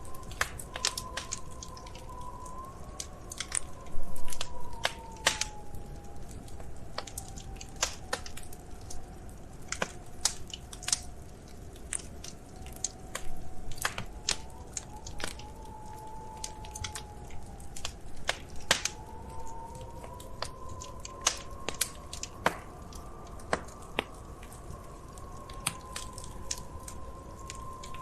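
Wood fire crackling, with frequent sharp pops and snaps at irregular intervals and a flurry of louder pops about four seconds in. A faint tone wavers slowly up and down underneath.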